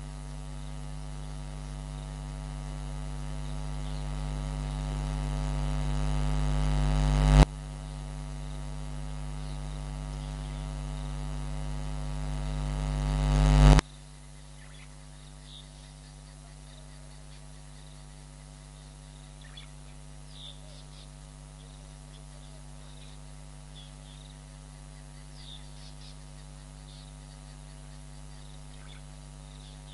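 Electrical mains hum with a ladder of even harmonics. It swells steadily louder and cuts back suddenly twice, about seven and fourteen seconds in, then runs steadily and quieter. Faint short high calls come through in the second half.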